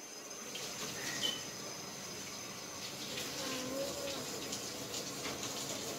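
Faint wet sloshing and small splashes as shrimp are dipped and swished in a bowl of garlic-butter sauce.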